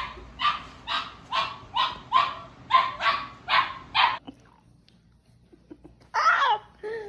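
German shorthaired pointer puppy barking in a steady run of short, high yips, about two a second, that stops about four seconds in.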